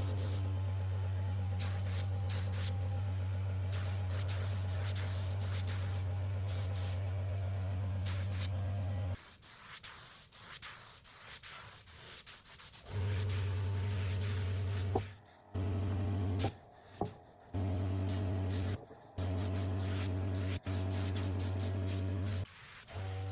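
A steady electric buzz with a hiss of spray over it, like a paint spray gun running. It cuts off and restarts abruptly several times, with quieter gaps in between.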